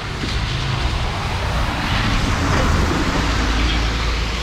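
A road vehicle driving along: steady engine hum and road noise, swelling a little in the middle.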